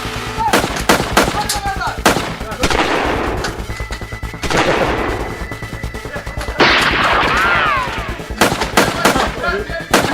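Gunfire-like bangs, single cracks and quick bursts, several trailing off in long hissing tails, over background music with a steady low beat.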